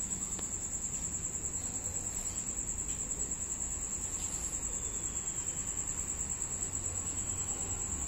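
High-pitched insect trill, steady and unbroken, with a fast pulse.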